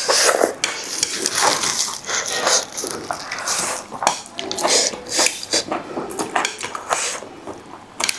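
Close-up eating sounds as spicy noodles are eaten: irregular slurps and mouth sounds, with utensils clinking against a bowl.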